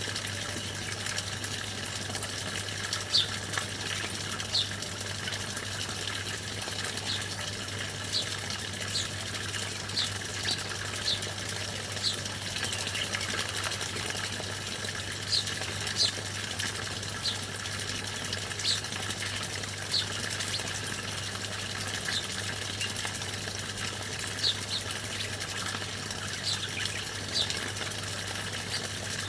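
Small songbirds giving short, high chirps that each drop quickly in pitch, scattered about one every second or two, over a steady rush of running water.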